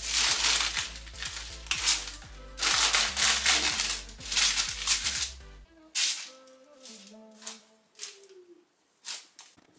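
Baking paper rustling and crinkling in loud, irregular bursts as a ball of risen bread dough is kneaded and pressed on it, over quiet background music. The bursts come thick and fast for the first half, then thin out to a few short ones.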